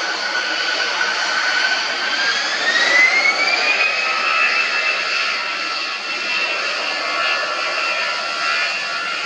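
Turbofan engines of an easyJet Airbus A320-family airliner whining steadily over a rushing noise, the whine rising in pitch about two to four seconds in and then holding high, as the engines spool up on the runway.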